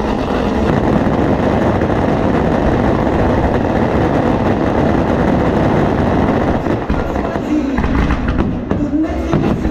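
Fireworks going off: a dense, continuous mix of crackling and bangs from aerial shells bursting and ground fountains firing.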